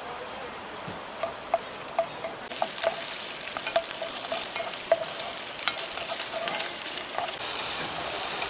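Food sizzling and crackling in a hot pan, a steady hiss dotted with small pops, getting louder about two and a half seconds in and again near the end.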